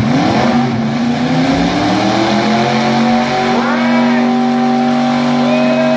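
Demolition derby truck's engine revving up over about three seconds, then held at high revs as its wheels spin in the dirt.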